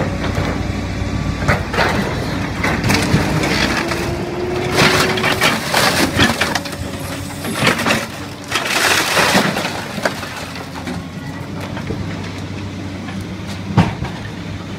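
An excavator's grapple claw crushing and tearing a truck's cab apart: metal crunching, cracking and clanging in repeated loud bursts over the steady run of the excavator's engine, with a single sharp bang near the end.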